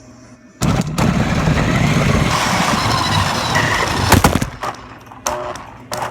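An RC car runs at speed across a hard floor with a loud, rattling, noisy sound lasting about four seconds. A sharp crack comes about four seconds in, then scattered knocks and clicks.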